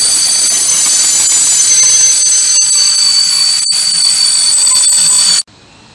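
Closed sliding-wall freight wagons rolling past close by: a loud, steady rushing rumble of wheels with a high-pitched squeal running over it. It cuts off suddenly about five seconds in.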